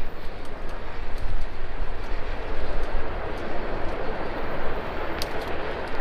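Wind buffeting the microphone and tyres rolling over a dirt trail, a steady rumbling rush with scattered sharp clicks and rattles.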